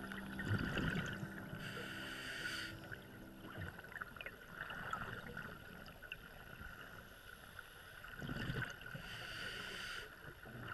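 Underwater sound on a scuba diver's camera: a regulator breathing cycle twice, a low bubbling rush followed by a higher hiss, over faint steady underwater crackle. A soft held music chord runs under the first few seconds and stops.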